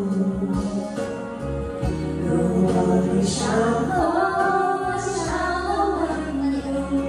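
Karaoke: singing over a music backing track with a steady bass line.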